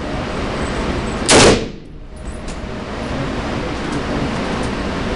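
A single rifle shot from a DPMS Oracle Panther AR-15-style rifle in 5.56x45/.223, about a second and a half in, with a short echo off the indoor range. A steady background hiss runs underneath.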